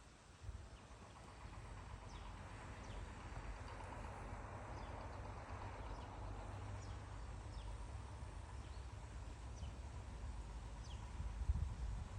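Quiet outdoor ambience: scattered short, falling bird chirps over a steady low rumble.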